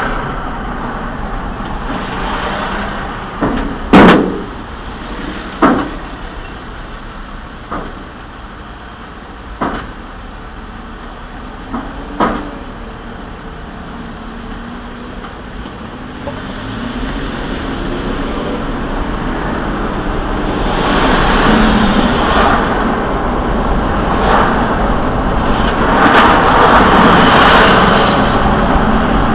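Car interior road noise as the car slows to a stop, with several sharp knocks in the first twelve seconds, the loudest about four seconds in. It then pulls away, engine pitch rising as it accelerates, and tyre and road noise builds with speed.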